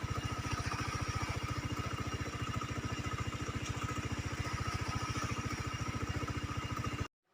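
An engine running steadily at an even speed, with a regular pulsing beat. It cuts off abruptly about seven seconds in.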